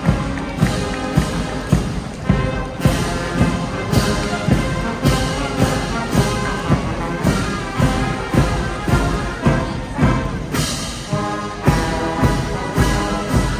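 Military brass band playing a march: brass chords over a steady bass drum beat.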